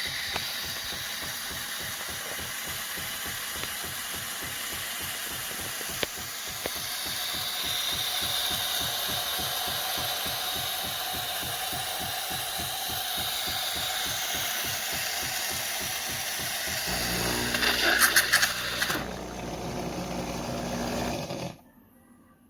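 Philips 4300 Series fully automatic espresso machine running through a cycle: a steady mechanical whirr with rapid pulsing changes about 17 s in to a lower, even hum with a short clatter, then cuts off abruptly about 21 s in.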